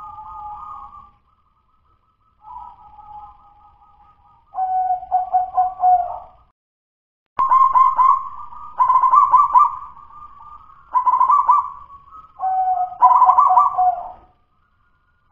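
Local zebra dove (perkutut) cooing in a series of short phrases separated by brief pauses, softer at first and louder from about seven seconds in. The owner judges the song still 'dudut-nutut', not yet the flowing, full song that fanciers prize.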